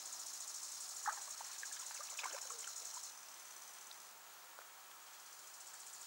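High, steady chirring of insects, fading somewhat about halfway through. A few small water splashes and plops come between one and three seconds in, as a frog leaps at an egg-laying emperor dragonfly.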